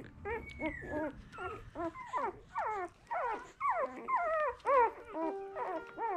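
Eleven-day-old Miniature Australian Cattle Dog puppies squealing and whimpering in a quick run of short cries that rise and fall in pitch, about two or three a second, getting louder toward the end.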